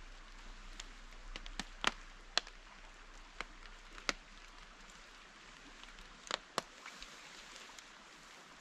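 Steady hiss of light rain in a forest, with about a dozen scattered sharp taps: the loudest come about two and four seconds in, and a close pair a little after six seconds.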